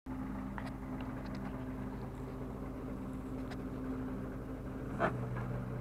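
Truck engine idling steadily, with a short clank about five seconds in.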